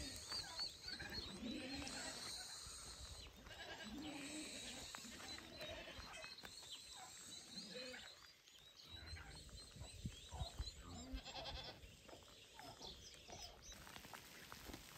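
Flock of goats and sheep bleating now and then, a short call every few seconds, with faint high chirping in the first few seconds.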